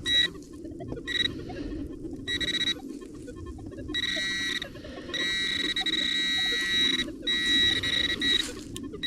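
Metal detector's steady high-pitched tone sounding in short beeps at first, then in longer, almost unbroken stretches as the buried target is homed in on. A steady low noise runs underneath.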